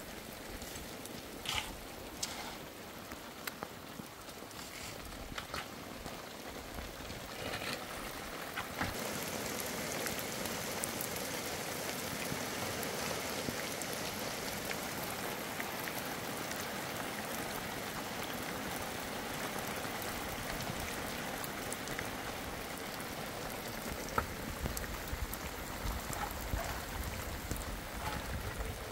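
Steady rain, getting heavier and louder about nine seconds in, with a few separate taps in the first seconds.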